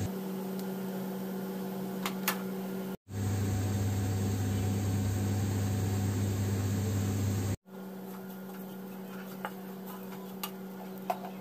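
Steady low electric hum from a running appliance motor, such as a fan. It cuts out abruptly twice and is louder between the two breaks. In the last few seconds a wooden spatula makes a few faint taps and scrapes against the pan while stirring.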